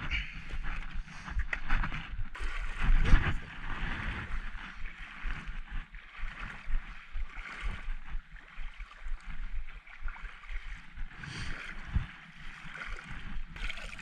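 Shallow seawater in a rock pool sloshing and gurgling around the camera and a hand reaching in, with heavy knocks of footsteps and handling on rock near the start and about three seconds in.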